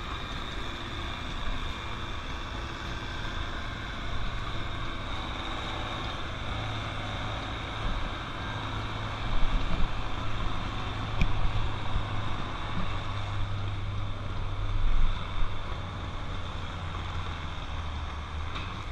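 Tractor engine working hard under load as it pulls a weight-transfer sled down a pulling track, a steady low drone that swells louder in the middle stretch.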